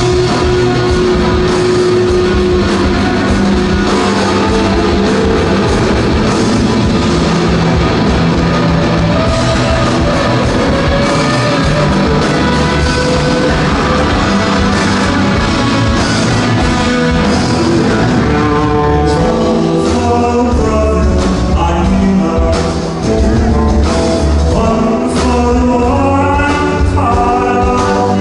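Rock band playing live, heard loud from the crowd: electric guitars, bass and drums. About two-thirds of the way in, a guitar line of quick stepping notes comes to the front of the mix.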